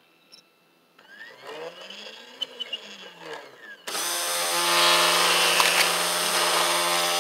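Small CNC mill at work. A motor whine rises and falls in pitch, then about four seconds in the spindle and cutter start a loud, steady milling noise.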